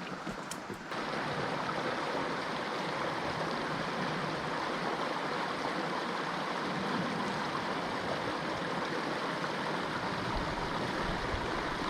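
Stream water running steadily over rocks, a constant rushing, babbling wash that grows louder about a second in.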